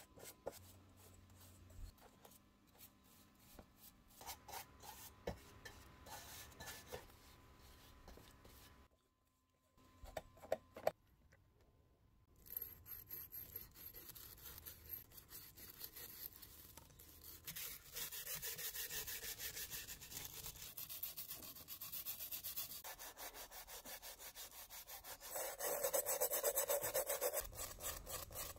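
Small hand wire brush scrubbing stripper-softened old paint off a vintage Eveready lantern's metal top cap in rapid back-and-forth strokes. Quieter scattered handling sounds come first; the scrubbing starts about 12 seconds in and is loudest near the end.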